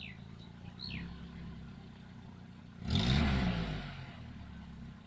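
Background hum with a motor vehicle passing about three seconds in, its engine note rising and then falling. Two short high chirps sound in the first second.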